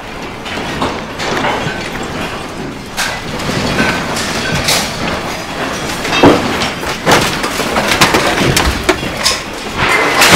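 A magnitude 7.2 earthquake shaking a house: a continuous rumble and rattle of the building and its contents, growing louder about a second in, with scattered knocks and clatters throughout.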